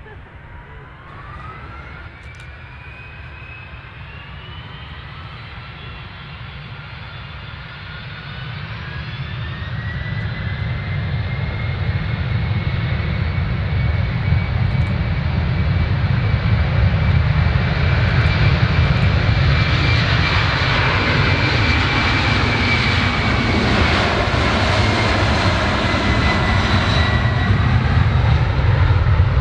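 Jet airliner engines spooling up. A whine climbs in steps over the first ten seconds and then holds high while a roar builds steadily louder, as when engines are run up to take-off thrust.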